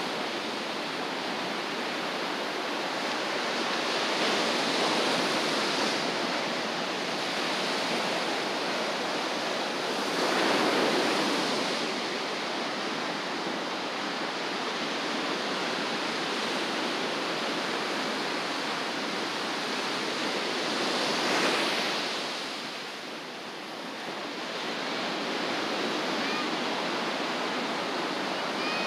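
Ocean surf washing steadily onto a beach, with louder waves breaking about five seconds in, again around eleven seconds, and again near twenty-one seconds.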